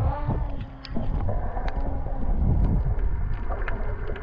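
Water sloshing and gurgling around an action camera held at the surface and dipped under, with scattered sharp splashes and a low steady hum underneath.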